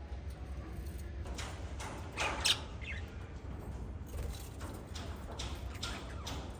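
Small pet parrots chirping in short, quick calls, starting about a second in, the loudest just past two seconds, over a steady low hum.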